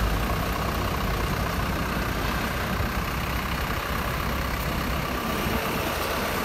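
Toyota 5FD25 forklift's 1Z diesel engine running steadily as it drives slowly, carrying two stacked pallets of bricks at the fork.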